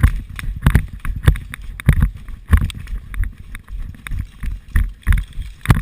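Steady footsteps, a little under two a second, each with a dull knock and rattle of gear against a body-worn action camera.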